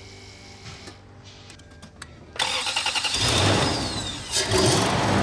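A 2000 Toyota Land Cruiser's 4.7 L V8 (2UZ-FE) being started on its newly fitted starter: after a couple of quiet seconds with a few faint clicks, the starter cranks the engine for about two seconds, and the engine then fires and settles into steady running.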